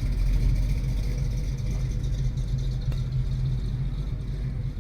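First-generation Ford Mustang's engine idling with a steady, low rumble.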